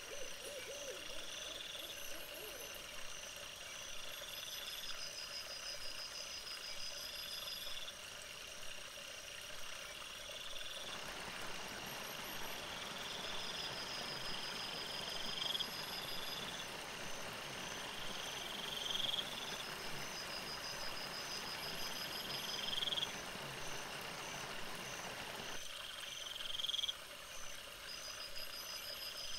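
Frogs calling at night: short high trills and rising chirps repeating every two seconds or so. In the middle stretch a steady hiss sits under the calls.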